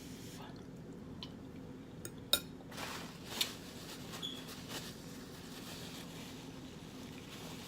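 Quiet handling of saucy seafood boil food and dishes: soft wet squishing and scraping, with a sharp clink a little over two seconds in, over a low steady hum.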